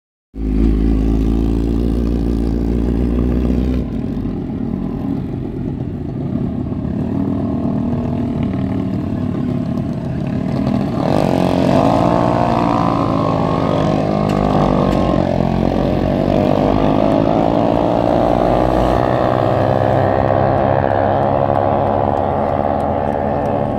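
Suzuki GSX-R 750 sport bike's inline-four engine idling close by, then easing off as the bike pulls away at about four seconds. From about eleven seconds a louder motorcycle engine note rises and falls as the engine revs.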